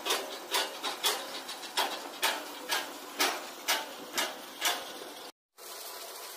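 Sharp knocks about twice a second from a tripod pile-boring rig working its drill pipe. They cut off suddenly a little after five seconds, and a steady hiss follows.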